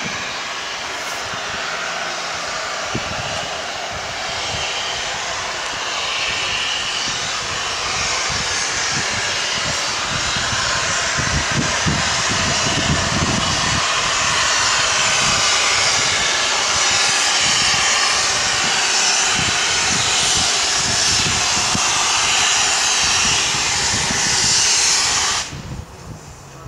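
Steam locomotive No. 925 Cheltenham, a Southern Railway Schools class 4-4-0, approaching under steam with its cylinder drain cocks open. A loud, steady hiss of steam grows louder as it nears, with some low thumps around the middle. The sound cuts off abruptly near the end.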